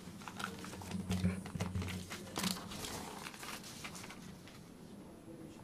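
Rustling and crinkling with many scattered light clicks close to the microphone, dying away after about three to four seconds.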